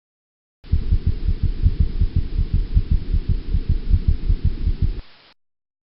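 Recorded heartbeat played back, low-pass filtered so almost nothing is left above a low cutoff: a quick, even run of low thumps starting about a second in and stopping near the end.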